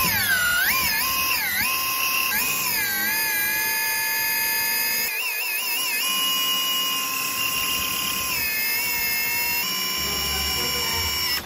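Upgraded electric motor of an RC Ford F450 truck on 8S LiPo power, whining at high revs in a burnout. Its pitch dips and rises with the throttle in the first few seconds, then holds a steady high whine.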